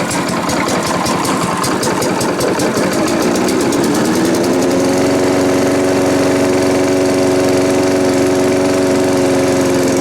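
Challenge Xtreme 3.5 hp four-stroke lawnmower engine running unevenly at low speed, then speeding up about three to four seconds in and holding steady at full throttle. The owner suspects a slightly sticky throttle.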